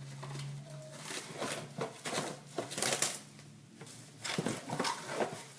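Irregular crinkling and crackling of a wrap being pulled over and pressed onto a dish to cover it, with a low steady hum in the first second or so.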